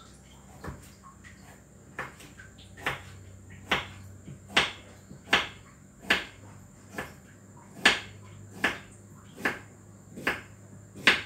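Kitchen knife chopping vegetables on a cutting board: a steady series of sharp chops, a little more than one a second, starting about two seconds in.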